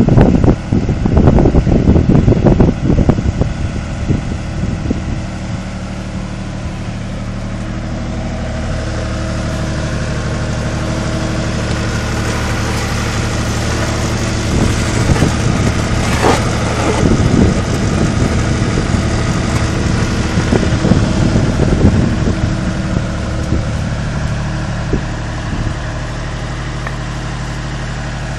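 Wheel loader's diesel engine running steadily while it powers a hydraulic concrete pan mixer. Wind buffets the microphone for the first few seconds, and there is a single sharp knock about halfway through.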